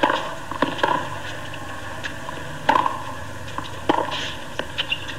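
Tennis rally: a ball struck back and forth by rackets, sharp pocks about a second or so apart with fainter ticks between, over steady crowd background.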